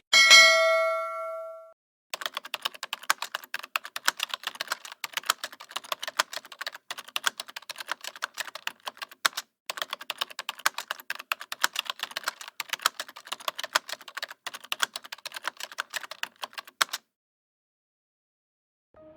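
A single bell ding that rings out over about a second and a half, then about fifteen seconds of rapid keyboard typing clicks, in the manner of a text-typing sound effect. It stops suddenly.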